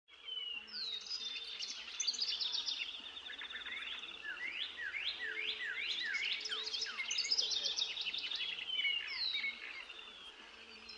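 Several birds singing and calling at once: overlapping chirps, rapid trills and quick falling whistles, fading a little near the end.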